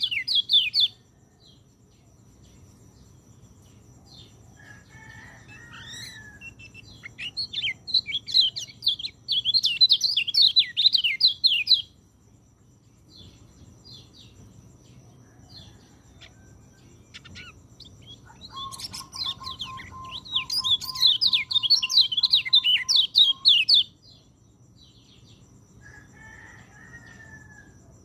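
White-eye (pleci) singing in fast, high twittering bursts: a short one at the start, then two longer ones of about four to five seconds each, with quieter calls between. A faint steady high tone runs underneath.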